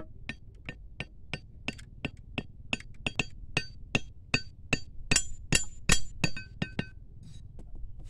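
A machete blade tapping a small wooden stake into hard ground, about two to three blows a second. From about five seconds in the blows grow louder with a short metallic ring, then stop about a second later.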